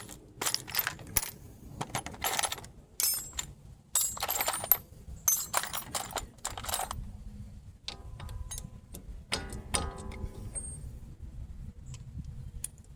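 Metal sockets and hand tools clinking and clattering as they are rummaged through. The clatter is dense for about the first seven seconds, then thins to scattered clicks.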